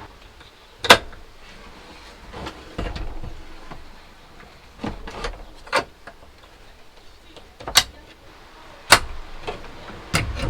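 Several sharp knocks and clunks, spaced a second or more apart, with short scraping or sliding noises between them, as wooden drawer parts are handled and fitted.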